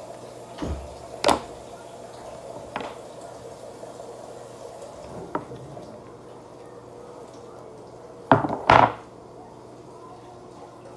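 A few sharp knocks and clicks of small hard objects on a hard surface, the loudest a quick double knock about eight and a half seconds in, over a steady low hum.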